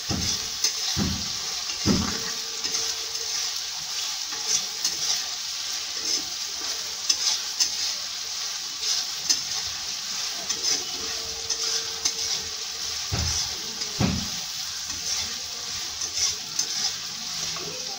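Chopped onions sizzling steadily in hot oil in a kadai as they are stirred with a spatula, which knocks and scrapes against the pan a few times.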